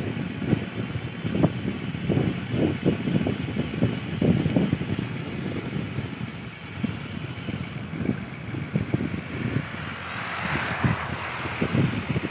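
Wind buffeting the microphone of a moving bicycle rider, an uneven gusty rumble. About ten seconds in, a hiss swells and fades.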